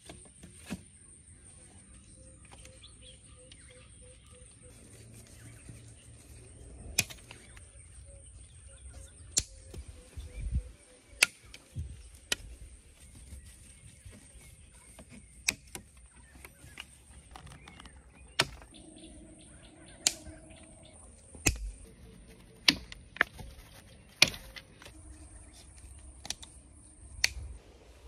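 Pliers snipping and twisting binding wire at the joints of a stick shelter frame: sharp clicks and snaps, about fifteen spread irregularly, over a faint steady high whine.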